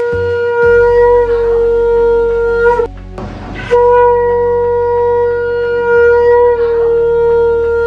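Conch shell (shankha) blown in long, steady, loud blasts at a single pitch. The first blast ends about three seconds in. After a short pause for breath a second long blast begins and is held, dipping slightly in pitch partway through.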